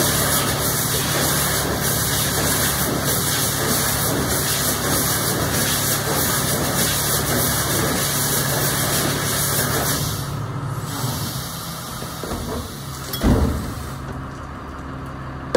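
Iveco refuse truck running with its rear bin lifter working. A steady running noise with a hiss over it holds while the lifter tips a wheelie bin over the hopper. About ten seconds in the hiss drops away, and a few seconds later there is a single loud clunk as the lifter brings the bin back down.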